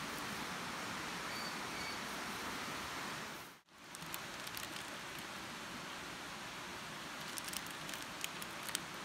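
Steady outdoor hiss, broken by a brief dropout a little over a third of the way in. Near the end, a few sharp crinkles as feta is squeezed and crumbled out of its plastic packet.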